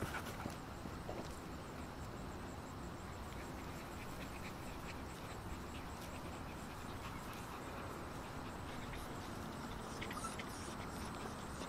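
Faint outdoor background: a steady low noise with scattered soft ticks and rustles, and a brief faint high squeak about ten seconds in.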